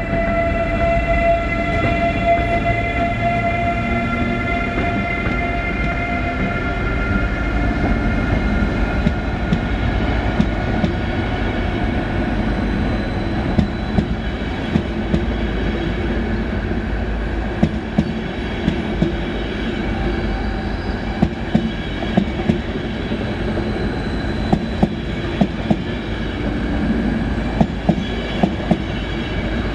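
ÖBB Taurus Rh1216 electric locomotive and its EuroCity coaches passing on the nearest track. A pitched electric whine from the locomotive falls slowly over the first several seconds. After that comes the steady rumble of the coaches, with wheel clicks over rail joints that grow more frequent toward the end.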